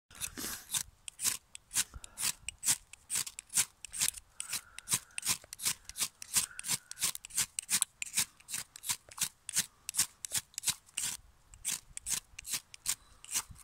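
Ferrocerium rod struck again and again with a metal scraper: a quick run of sharp rasping scrapes, about three a second, as sparks are thrown at a tinder bundle that will not catch.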